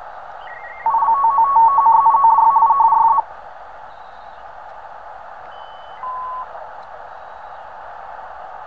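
Receiver hiss from a uSDX HF transceiver tuned across the 20-metre amateur band in upper sideband. About a second in, a loud signal of two tones switching rapidly back and forth comes through for about two seconds, and about six seconds in a short steady whistle of a passing signal sounds.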